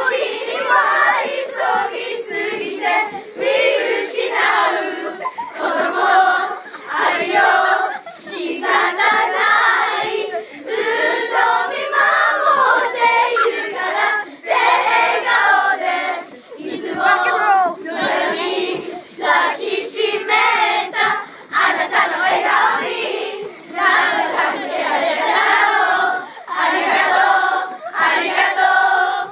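A group of children singing a song together, loud and close, in phrases with short breaks between them.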